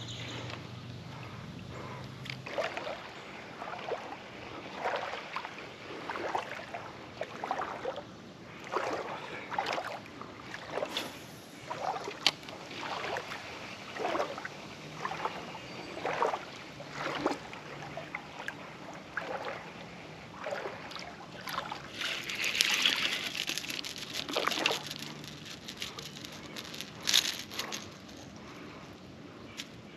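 River water trickling and sloshing, with a run of short irregular splashes about once a second and a louder splashy stretch a little after twenty seconds in.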